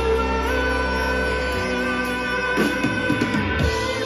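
Live rock band playing an instrumental passage: electric guitars holding ringing notes over bass and drums, with the drums and strumming getting busier about two and a half seconds in.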